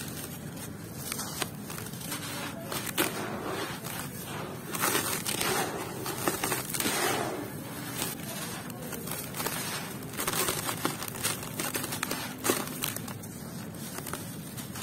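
Dry sand-and-cement clumps crushed and crumbled by hand, with gritty crackling crunches and loose grains pouring and sifting through fingers.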